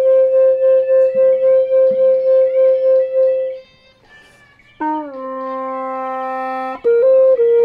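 Vietnamese bamboo flute (sáo) playing a slow melody over a backing accompaniment: a long wavering held note, a short break about halfway, then a long low note and a few quick notes near the end.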